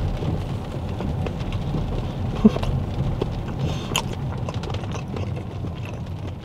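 Low road and tyre rumble from a Tesla Model X on a wet road, heard inside the cabin, with scattered light ticks and a sharper click about two and a half seconds in.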